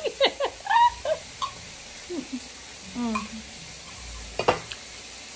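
Meat sizzling on an indoor electric grill as a steady hiss, with a burst of laughter in the first half second and a sharp click about four and a half seconds in.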